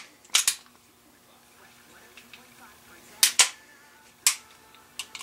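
Sharp metallic clicks from a 1911 pistol's steel slide and parts being handled during reassembly. There is one click just after the start, a louder double click a little past three seconds in, and one more about a second later.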